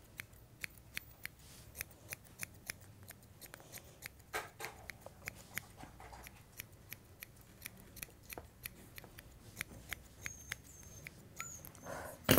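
Grooming scissors snipping through a Yorkshire terrier puppy's coat, quick repeated snips at about three a second, as the hair on the back legs is trimmed and blended.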